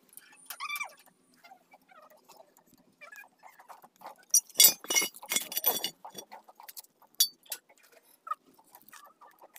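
Light metal clinks and scrapes of a steel angle-iron piece being handled and set against a rusty steel plate, with a burst of sharp clinks about four to six seconds in.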